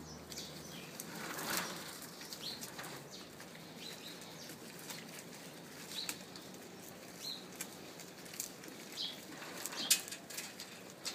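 Leaves rustling as a leafy branch is shaken and pulled at by feeding goats, with scattered light clicks and a few faint, short, high chirps.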